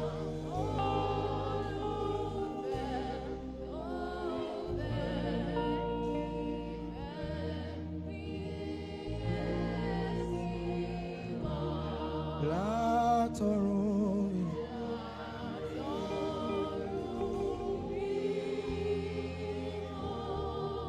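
Live gospel worship music: a wavering, scooping melody line, carried by the saxophone with voices singing along, over sustained keyboard and bass chords.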